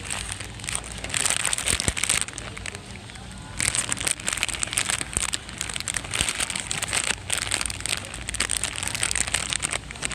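Crinkling, crackling handling noise in irregular bursts, with a lull a couple of seconds in, over a low steady hum.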